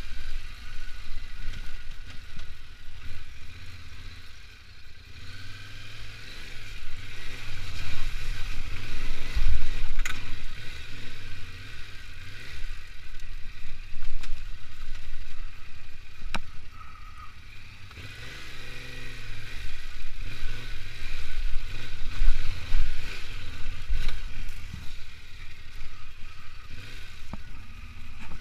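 Yamaha Ténéré 700's parallel-twin engine running under changing throttle on a rough dirt trail, its sound swelling and easing every few seconds, with the bike clattering over bumps and a couple of sharp knocks.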